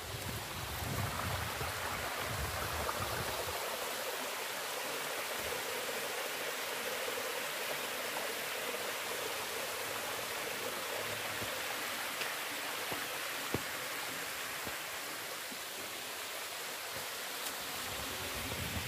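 A small stream of water running and splashing down over rocks and gravel in a steady rush. A low rumble sits under it in the first few seconds.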